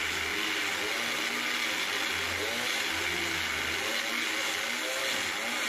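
Hand-held electric power tool running steadily as it cuts through a plastic drum, its motor pitch wavering as it works through the plastic.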